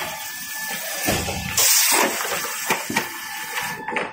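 Color-gluing lamination toilet paper roll making machine running: a steady mechanical hiss with faint whining tones, and a short, louder burst of hiss near the middle.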